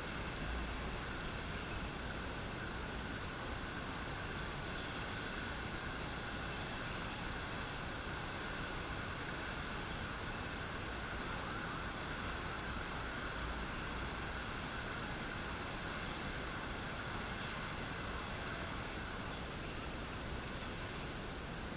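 Steady light rain falling, an even hiss, with a thin, high-pitched steady tone above it.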